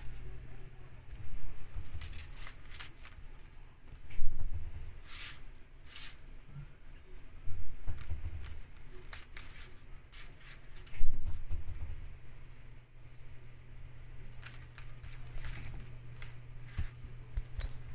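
Cat teaser wand toy with a rattan ball jingling in several short bursts as it is waved and batted about, with a few dull thumps in between.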